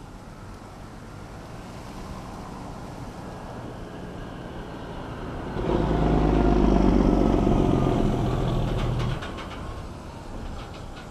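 A road vehicle passing close by. It grows louder, is loudest for about three seconds in the middle, and its pitch falls as it goes past.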